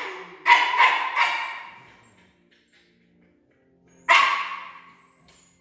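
A dog barking: three quick barks about half a second in, then a single bark about four seconds in, each dying away with a short echo in the room.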